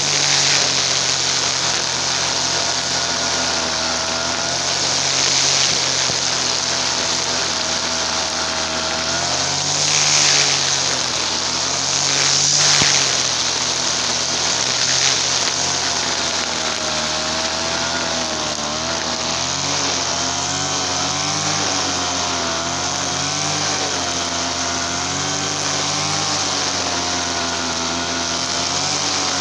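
Easyman brush cutter's TL33 two-stroke engine running, its pitch wavering up and down, with louder swells about ten and thirteen seconds in.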